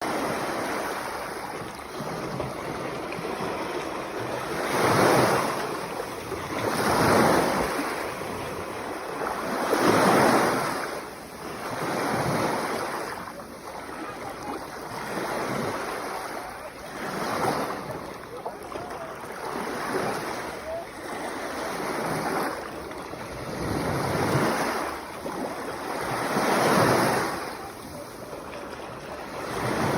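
Sea waves breaking on the shore in a steady rhythm, each wash swelling and fading every two to three seconds, with a few louder surges.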